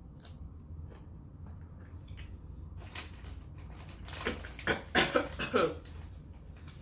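Close-miked mukbang eating sounds: faint mouth clicks and smacks, then a cluster of loud, sharp crackling noises lasting about a second and a half, starting about four seconds in.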